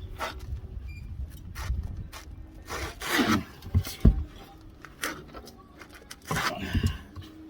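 Scraping, rubbing and irregular clanks of hand tools and brake parts being worked on, with a sharp knock about four seconds in.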